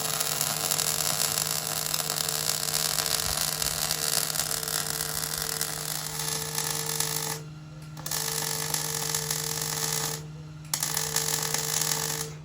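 A harsh, dense mechanical rasp in three long stretches, broken by two short pauses, about seven and ten seconds in.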